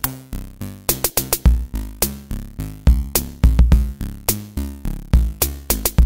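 Background music with a steady, fast beat of sharp drum hits over a bass line.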